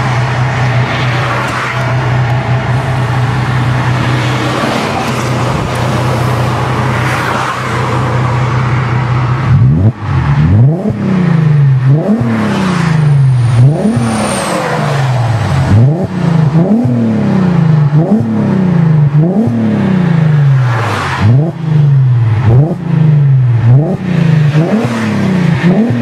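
Volkswagen R32's 3.2-litre VR6 engine through a custom 3-inch exhaust with a hotdog resonator and 4-inch rolled tips, heard from the cabin with the windows open. The engine is held at a steady speed, then from about ten seconds in it is blipped repeatedly, roughly once a second, each rev rising quickly and dropping back.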